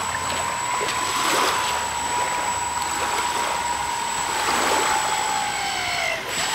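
Twin electric motors and propellers of a Dynam PBY Catalina RC model seaplane whining steadily as it taxis on the water. The pitch sinks slowly, then drops off near the end as the throttle comes back. A rushing hiss of water runs underneath.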